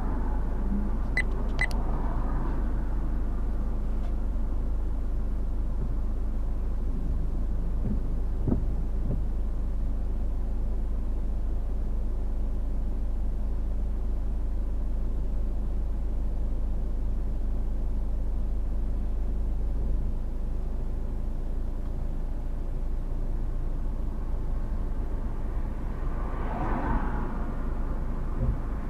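Steady road and engine noise of a moving car heard inside the cabin, a low rumble throughout. Two short high pips come about a second in.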